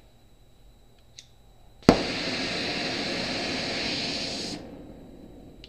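Welding equipment in use on a steel frame: a sharp crack about two seconds in, then a steady hissing rush for under three seconds that cuts off abruptly.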